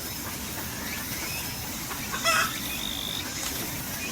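A chicken giving one short cluck about two seconds in, with a few faint thin chirps around it.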